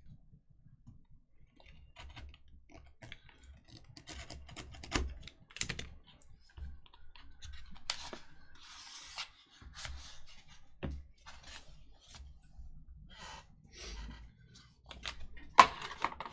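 Handling of a small black cardboard box of trading cards as it is opened and the card stack taken out: scattered small clicks, taps and rustles of cardboard and cards, with a short scrape about eight seconds in and a louder knock about a second before the end.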